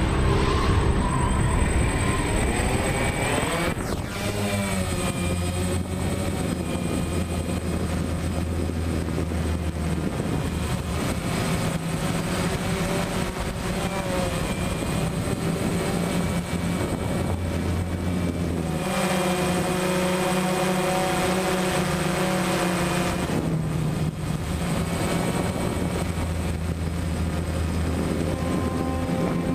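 DJI Phantom quadcopter's motors and propellers buzzing in flight, recorded from the camera on the drone itself. The buzz is steady, with its pitch sliding up and down several times as the throttle changes.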